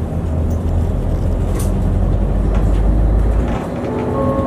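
City bus engine and drivetrain running under way, heard from inside the cabin as a low rumble that builds and then drops about three and a half seconds in. A faint steady higher tone comes in near the end.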